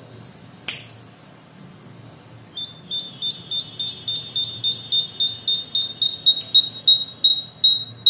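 Intermittent buzzer of a home-made NTC-thermistor fire alarm beeping rapidly, about four high beeps a second, starting a couple of seconds in and growing louder: the alarm tripping as a lighter flame heats the thermistor. A lighter clicks about a second in.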